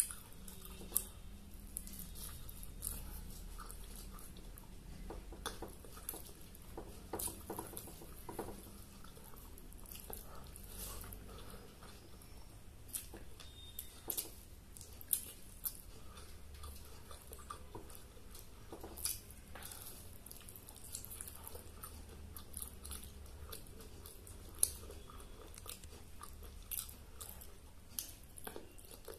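A person chewing and biting food close to the microphone while eating by hand: irregular short clicks and mouth sounds throughout, biting into a chicken leg near the end, over a low steady hum.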